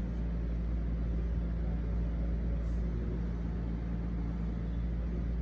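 A steady low machine hum with a deep rumble beneath it, unchanging throughout.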